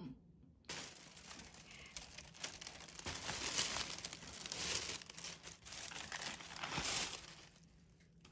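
Plastic carrier bags and food packaging crinkling and rustling as a takeout order is unpacked by hand. It starts just under a second in and dies down near the end.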